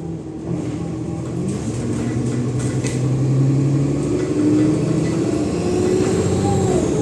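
Cummins ISLe diesel engine of an Alexander Dennis Enviro 500 double-decker bus pulling under load through its ZF automatic gearbox, the engine note climbing and getting louder about three seconds in, with a faint high turbo whistle over it near the end.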